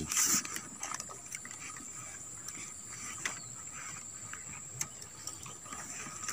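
Light clicks and knocks of fishing rods, reels and floats being handled and drawn out of a backpack: a few scattered sharp clicks over faint rustling.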